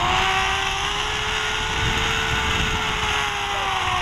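Zip-line trolley's pulley wheels running along the steel cable with a steady whine, its pitch dropping near the end as the rider slows toward the platform. Wind rumbles on the camera's microphone throughout.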